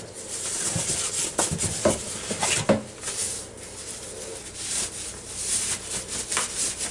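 Rustling and crinkling of a white packing sheet as it is lifted out of an air fryer basket and unwrapped from the crisper plate, with a few light knocks of the plate against the basket in the first three seconds.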